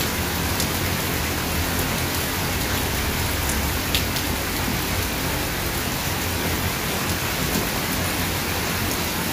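Heavy rain pouring steadily onto a wet paved street, a dense even hiss with the odd sharper tick of a single drop.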